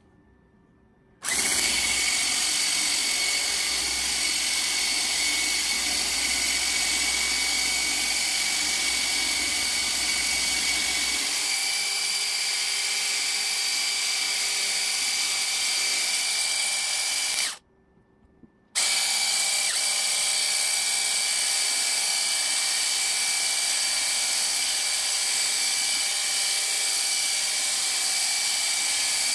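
Handheld electric whisk running steadily with a high motor whine, its wire balloon whisk beating a cream and black-sesame mixture in a ceramic bowl. It starts about a second in, cuts out for about a second past the middle, then runs on again.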